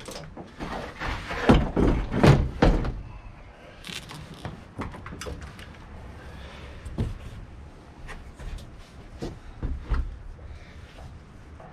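Loud thumps and knocks as a portable fuel tank and its hose are set down and handled by an open engine hatch, then scattered lighter clicks and knocks of hands and tools down in the engine bay while a clamped fuel line is taken off.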